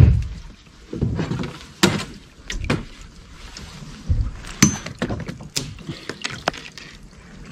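Irregular knocks and thumps on a small boat's hull and fittings, with sharper clicks and brushing, as the boat is worked in among overhanging willow branches. The heaviest knock comes right at the start, and further knocks follow about two, four and five seconds in.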